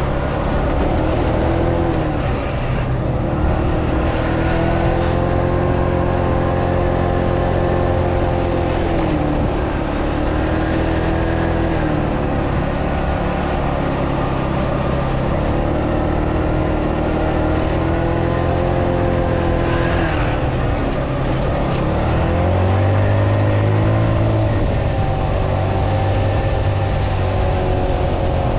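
Italika D125 125cc scooter engine running while riding, its pitch falling and rising with the throttle several times, with a deeper dip and climb about twenty seconds in.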